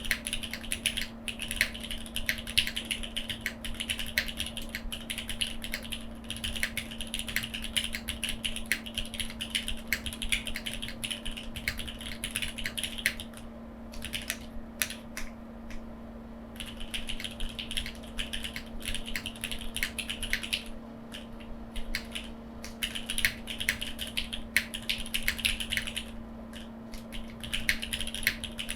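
Typing on a foamless mechanical keyboard with Cherry MX2A Black linear switches and GJ Japan keycaps: fast continuous runs of key clacks, broken by a few short pauses, over a faint steady hum.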